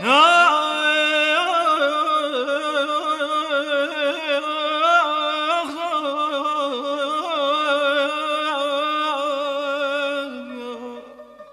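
Male Persian classical (avaz) singer holding a long wordless phrase in dastgah Homayun, decorated throughout with rapid tahrir trills: quick, yodel-like flicks of the voice. The phrase opens with a swooping rise, and falls and fades near the end.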